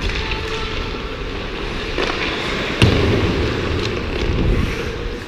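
Ice skates scraping and carving on the ice, with wind rumble on the body-worn action camera's microphone. A sharp crack about three seconds in, the loudest moment, like a hockey stick or puck striking.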